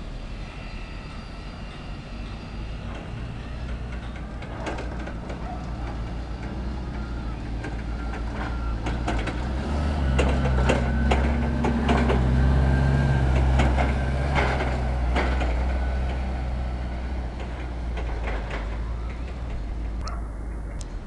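Toyota forklift truck's engine running close by, growing louder about halfway through and easing off again, with scattered knocks and clanks.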